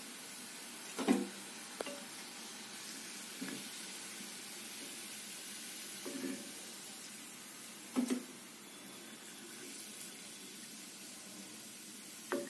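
Hot oil sizzling steadily in an iron kadai as fried bread gulab jamun balls are lifted out with a metal slotted skimmer, which knocks against the pan about six times, loudest about a second in.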